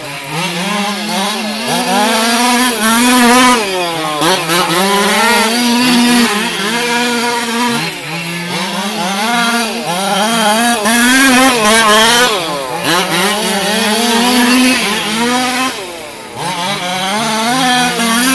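Small two-stroke gas engine of a 1/5-scale HPI Baja-based RC car running laps, its pitch rising and falling continuously with the throttle through the turns, with two brief lulls.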